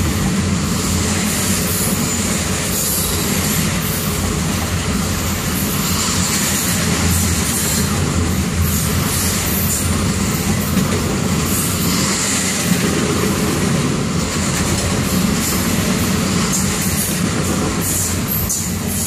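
Double-stack intermodal container train rolling past steadily, a continuous loud rumble and clatter of the well cars' steel wheels on the rails.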